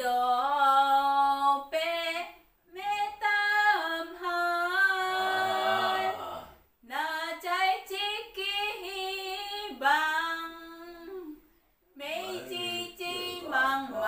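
A woman singing a simple song in Taiwanese, unaccompanied, in four phrases of held and gliding notes with short breaths between them.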